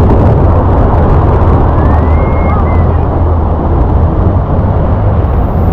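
Tour boat's engine running steadily under a loud, continuous rush of water. A brief faint rising tone sounds about two seconds in.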